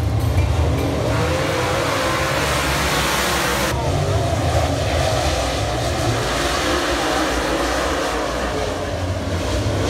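A pack of dirt late model race cars running at speed around a dirt oval, their V8 engines revving and wavering in pitch as they pass. A little under four seconds in, the sound suddenly turns duller.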